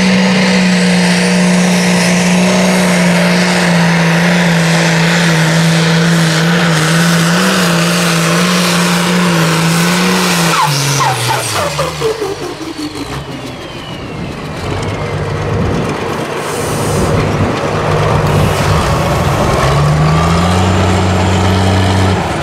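Modified pulling tractor's engine running flat out under load as it drags the weight sled, a steady high drone. About ten seconds in, the note falls away as the pull ends, and the engine then runs on at lower revs, rising again briefly near the end.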